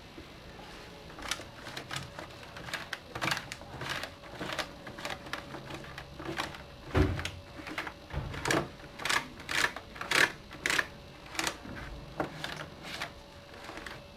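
Desk telephone being wiped down with a damp cloth: irregular clicking and rubbing as the cloth passes over the keypad buttons and plastic casing, with a low knock about halfway through.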